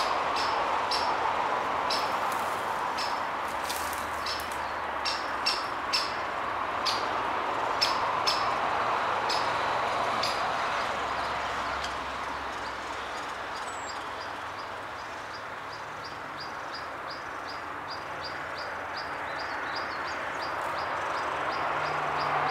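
Great spotted woodpecker giving short, sharp calls, scattered at first and then in a quicker run of about three a second through the second half, over a steady rushing noise that dips in the middle and swells again near the end.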